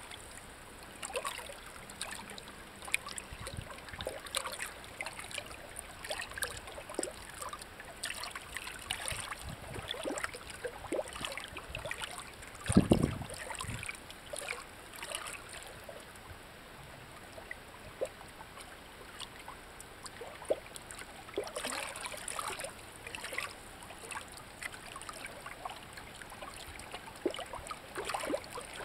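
Shallow water trickling among rocks, with many small irregular plinks and drips. One dull low thump about halfway through is the loudest sound.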